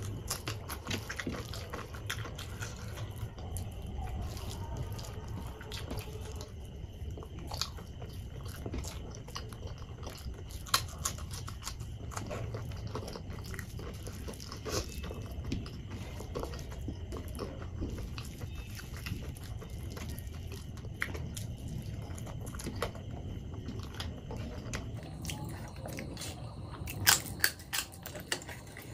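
Close-up eating sounds: a person chewing a mouthful of food, with many small wet clicks. Near the end come a few loud, sharp crunches of papad being bitten.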